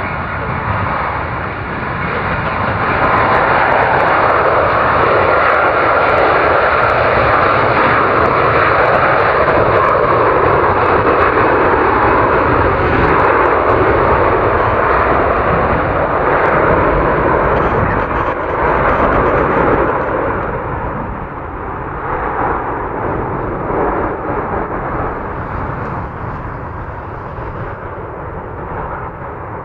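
Jet engine roar from the Airbus Beluga XL2's twin turbofans. It swells over the first few seconds, holds loud and steady, then fades off after about twenty seconds.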